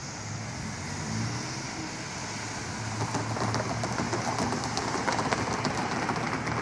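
Sacramento RT light-rail train approaching a grade crossing: a steady low hum that grows gradually louder, with many faint rapid clicks joining about three seconds in.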